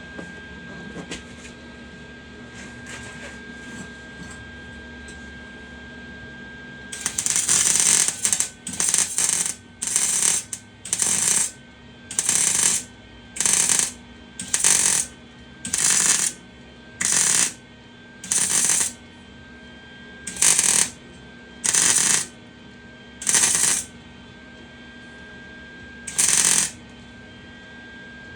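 Welder laying short stitch welds: repeated bursts of arc crackle, each about half a second long and roughly one a second, starting about seven seconds in, with a few longer pauses. A faint steady tone runs underneath.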